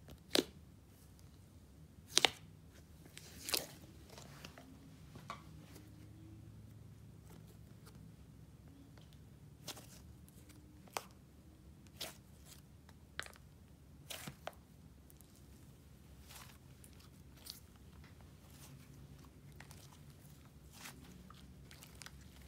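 Layered clay and icing slime being poked, stretched and folded by hand, giving scattered sticky pops and crackles. The loudest pops come in the first few seconds, with softer ones spread out after.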